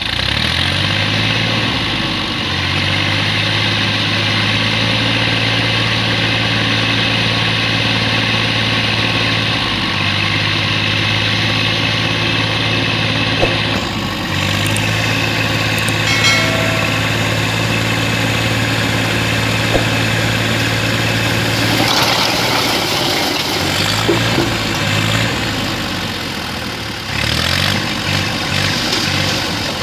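Farm tractor engine running steadily while pulling a brick-loaded trolley. About two-thirds of the way through the engine note wavers and changes, and near the end the raised trolley dumps its load with a rough, rushing clatter of bricks sliding off.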